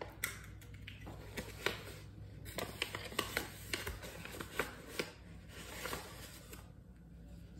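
Paper flour bag rustling and a measuring spoon scraping as tablespoons of flour are scooped out, with a scatter of small clicks and taps.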